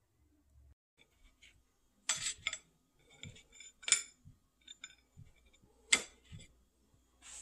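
Dishes and cutlery clinking and knocking as they are handled on a table: a few separate light knocks, the sharpest about six seconds in.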